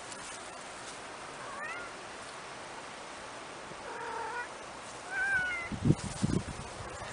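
A kitten meowing three times in short, high calls over a steady hiss. A few loud low thumps follow near the end.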